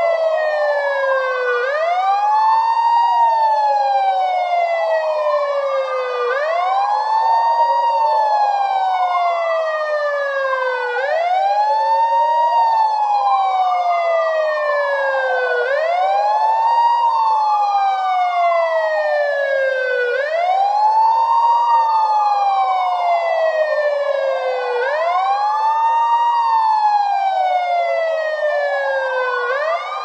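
Police siren sound effect in a slow wail: two overlapping tones, each rising quickly and then falling slowly, repeating about every four and a half seconds.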